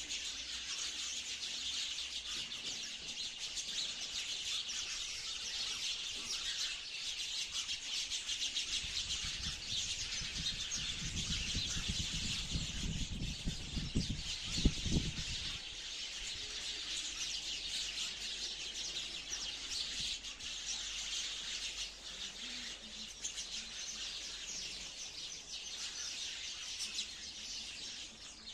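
A flock of sparrows chirping and chattering continuously, many calls overlapping. Roughly midway a low rumble rises under the chirping, with a single sharp knock at its peak.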